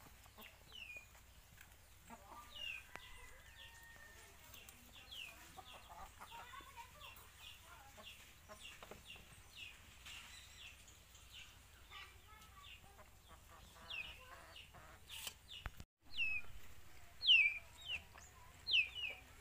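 Chickens calling: a run of short, high peeps that fall in pitch, repeating every second or so and loudest near the end.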